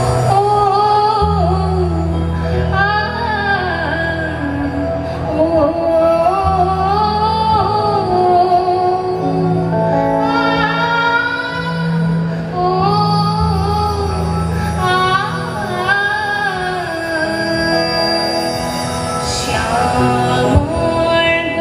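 A woman singing a song into a microphone through a PA, her melody wavering and gliding between notes, over instrumental accompaniment with sustained low bass notes that change every few seconds.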